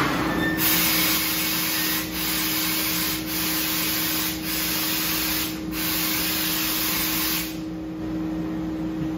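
Fiber laser cutting machine running, with a loud hiss of gas blowing from the cutting head. The hiss is broken by four brief gaps about a second apart and stops near the end, over a steady low hum.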